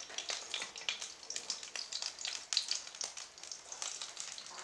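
German sausages frying in hot oil: a steady sizzle broken by frequent small crackles and pops.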